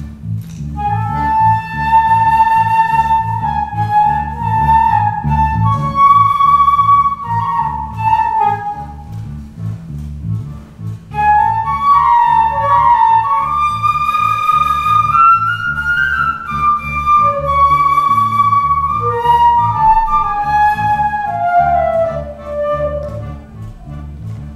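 Concert flute playing a melody in two long phrases, the second climbing and then falling away near the end, over a steady repeating electric bass guitar line.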